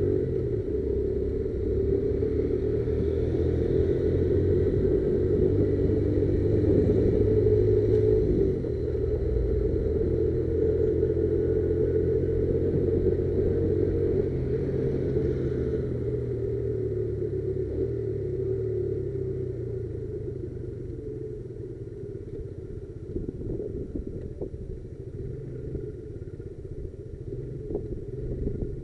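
Motorcycle engine running steadily with a low rumble. It drops slightly about eight seconds in, then fades gradually over the second half.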